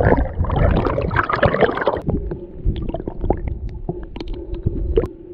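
Creek water heard through a submerged action camera: a dense churning rush of current and bubbles, then after about two seconds a quieter steady hum with scattered sharp clicks of stones knocking together as rocks on the streambed are turned over by hand.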